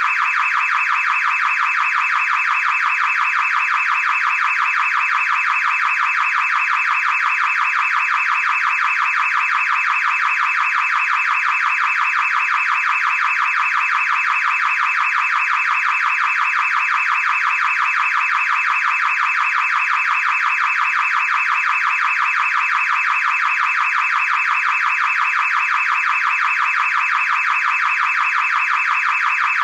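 Car alarm siren sounding continuously: a loud, shrill, rapidly pulsing tone that holds steady without any change or pause.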